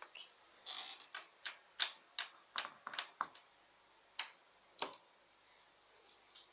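Faint handling noises close to the microphone: a quick run of small clicks, taps and rustles for about three seconds, then two single clicks a second or so apart.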